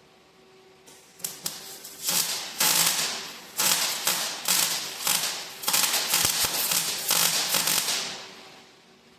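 MIG welder crackling in a run of short bursts, weld after weld, with brief pauses between them.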